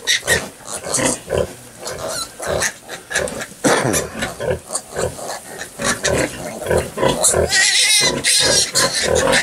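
A nursing sow grunting in short, repeated grunts as her piglets suckle, with a high-pitched piglet squeal lasting about a second, starting about seven and a half seconds in.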